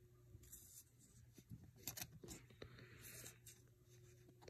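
Faint rustling and scraping of a clear plastic card sleeve as a trading card is slid into it: a few short crinkles and a longer soft rustle in the middle.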